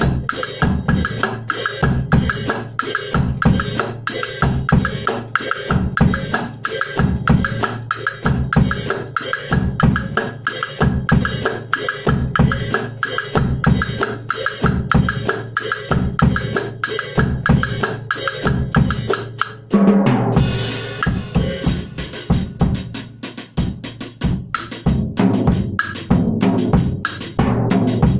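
Drum kit playing a steady cumbia groove: bass drum on the beat, a clave pattern from the right-hand stick on a towel-muffled drum, and rimshots on the snare. About twenty seconds in a cymbal crashes and the pattern changes, with heavier low drum strokes.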